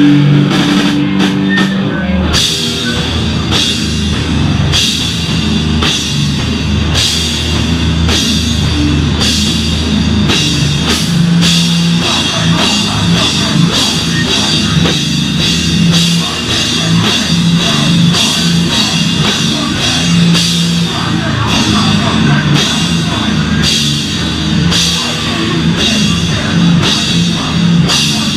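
Hardcore band playing live: down-tuned guitar and bass chugging under a steady, heavy drum beat with cymbal crashes about once a second. The full band hits in hard about two seconds in, after a held low note.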